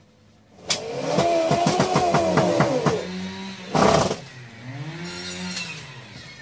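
Washing-machine motor of a homemade rice-flour grinder switched on in short bursts: its whine rises and falls as it spins up and coasts down, with rapid knocking during the first run. A loud burst of noise comes near the middle, then a second, shorter spin-up and coast-down.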